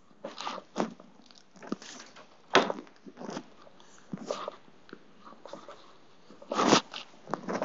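Irregular rustling, shuffling and knocking as clothes and belongings are handled and packed, with two louder bursts about two and a half seconds in and near the end.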